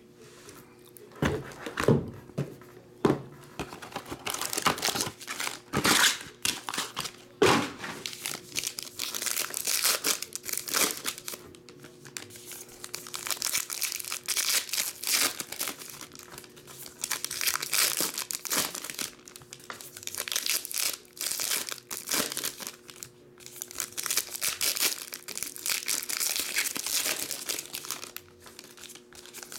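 Foil trading-card pack wrappers crinkling and tearing as they are ripped open by hand, again and again. A few heavier thumps come in the first eight seconds.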